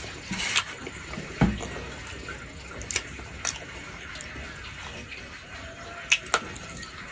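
Sounds of eating boiled young squash: wet chewing with a few sharp clicks of chopsticks against a bowl and a dull knock about one and a half seconds in, over a steady watery hiss.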